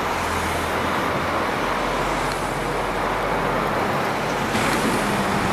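Road traffic noise: a steady rush of vehicles with a low engine hum, growing slightly louder near the end.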